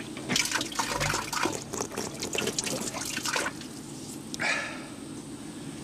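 Mineral spring water splashing from the spout of a hand-cranked spring pump for about three seconds while the handle is worked, then a short further splash about a second later.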